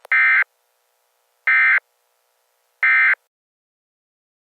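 Three short bursts of EAS SAME digital data, the end-of-message tones, each about a third of a second long and about 1.4 s apart: a harsh, buzzy electronic warble. They signal the end of the emergency alert message.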